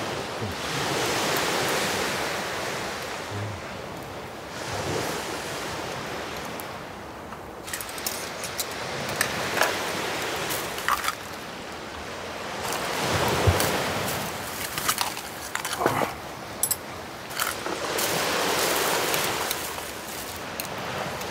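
Sea waves washing onto the shore in slow swells that rise and fall every few seconds, with a few light clicks and clinks now and then.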